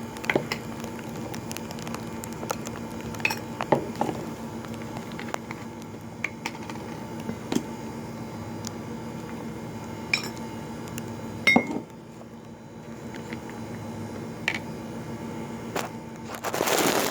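Jars and containers being opened and handled on a counter: scattered clicks, clinks and knocks, with one sharper knock about two-thirds of the way through and a brief noisy rustle near the end, over a steady background hum.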